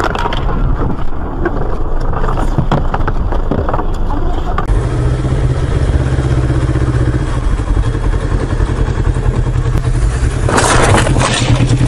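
Car road noise with clattering knocks, then a motorcycle engine running steadily at low speed, heard from the rider's helmet. Near the end a louder rushing noise rises over the engine.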